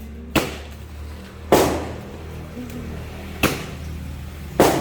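Firecrackers going off: four sharp bangs a second or two apart, each with an echoing tail.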